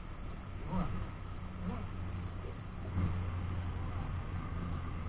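A boat motor humming steadily at low pitch, getting louder about three seconds in.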